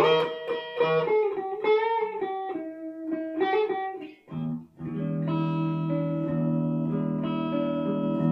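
Background music on guitar: a run of plucked single notes with bent, wavering pitch, then a held, ringing chord from about five seconds in.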